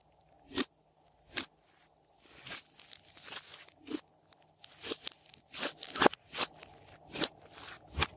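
Glossy slime being worked by hand, giving irregular sticky pops and clicks, roughly one or two a second, the loudest about six seconds in.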